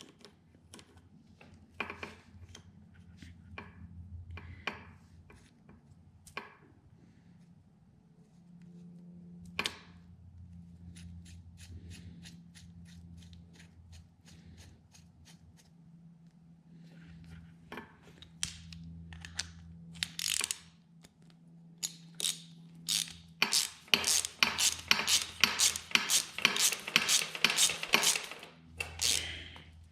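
Ratchet wrench clicking as it turns a chain breaker tool to press a link pin out of a motorcycle drive chain. Scattered clicks at first, then quick, steady clicking over the last several seconds.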